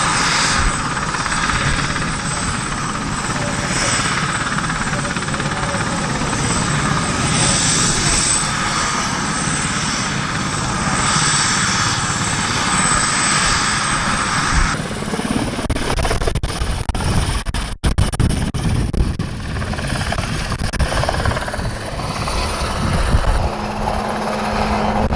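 Eurocopter AS332 Super Puma twin-turbine helicopter running with its rotor turning: a steady high turbine whine over the rotor's noise. About halfway through the sound changes abruptly as the helicopter lifts off and climbs away, and a steady low hum comes in near the end.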